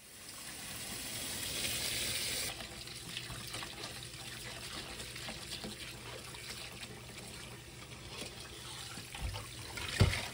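Water pouring and running through a stainless steel mesh strainer full of hijiki seaweed in a steel sink, loudest for the first couple of seconds and then a steady stream. A sharp knock near the end.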